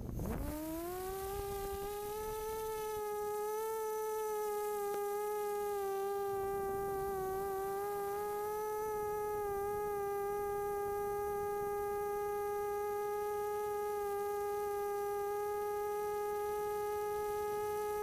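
A DRQ250 250-size quadcopter's brushless motors and propellers whining, heard from on board. They spin up from rest to a high buzz in the first second, waver slightly in pitch during the climb-out, then hold a steady pitch in flight.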